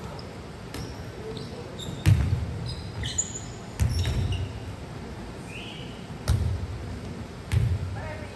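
A volleyball being struck and bouncing, about five sharp thuds one to two and a half seconds apart, echoing in a large gym hall, with a few short high squeaks.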